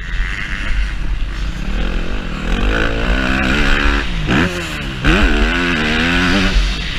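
Yamaha YZ-F four-stroke motocross bike engine revving hard, its pitch climbing, then dropping sharply twice around four and five seconds in as the throttle is chopped or a gear is shifted, then rising again. Low wind rumble on the microphone underneath.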